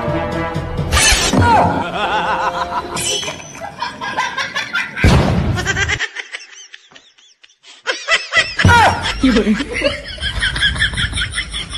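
Laughter, with a loud sudden hit about five seconds in and a short lull after it.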